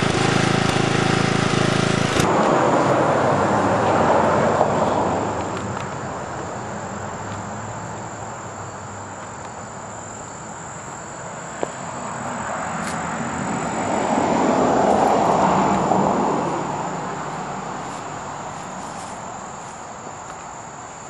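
Small single-cylinder-class lawn tractor engine, the SunRunner's 12-horsepower Briggs & Stratton, running steadily and then cutting off about two seconds in. After it, crickets chirr steadily, and a rushing noise swells and fades twice.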